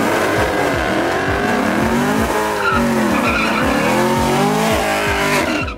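Chevrolet Camaro doing a burnout: rear tyres squealing as they spin, with the engine revving up and down under them.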